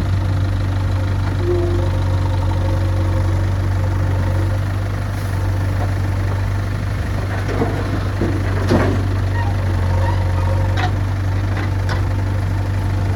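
Diesel engine of a JCB 3DX backhoe loader running steadily at a low, even hum, with a few short knocks from the machine in the second half.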